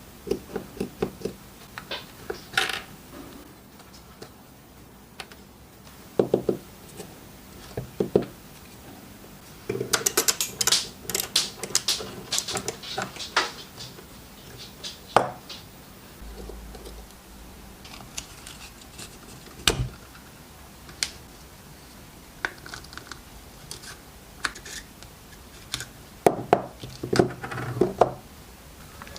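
Irregular clicks, taps and rattling of small hard parts being handled and set down, with a dense run of rattling about a third of the way in and a low thump about two-thirds of the way through.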